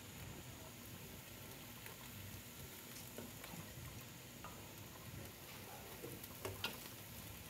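Faint sizzling of potato chunks frying in a stainless steel pot, with a few light clicks of a spatula against the pot.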